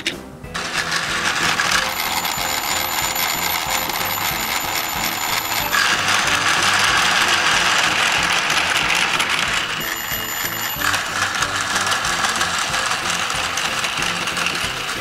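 Plarail battery-powered toy train hauling container wagons over plastic track, its small motor and wheels giving a steady whirring rattle that starts about half a second in. Bell-like electronic ringing and background music run with it.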